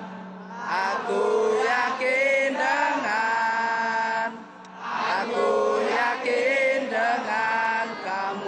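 Crowd of football supporters singing a terrace chant together, in sung phrases with two short breaks, about half a second in and about four and a half seconds in.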